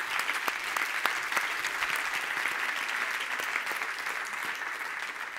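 Audience applause, a steady dense clapping from a conference hall crowd that fades out near the end.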